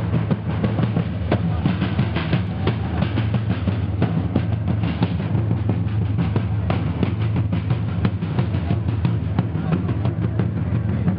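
Marching drums, snares and bass drum, played by a costumed drum corps: a dense, steady run of strikes.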